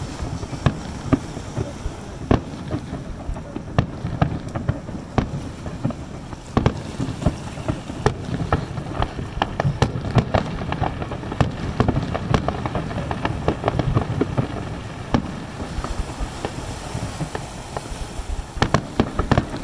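Aerial fireworks bursting: a steady run of sharp bangs, about one to three a second over a continuous low rumble, coming thicker and faster near the end.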